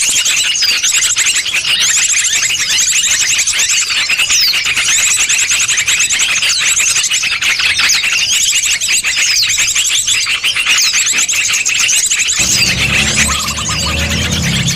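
Bird-lure recording of a dense chorus of small birds: repeated rapid, very high trills, each lasting under a second, over constant chirping. Near the end a low humming backing comes in underneath.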